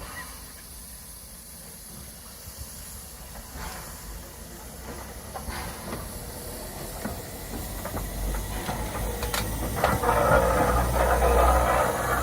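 Steam locomotive hissing steam, with a low rumble and scattered knocks and clanks, growing steadily louder; the hiss swells sharply near the end.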